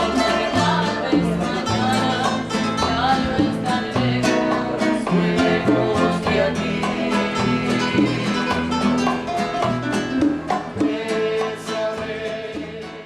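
Cuban band playing, with plucked strings over a steady bass line; the music fades down near the end.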